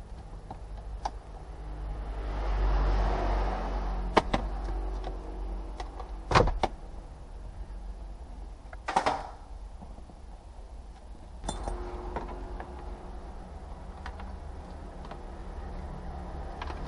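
Scattered knocks and clicks of parts being handled in a car's stripped-out dashboard area, around the heater and evaporator case, over a low workshop rumble that swells twice.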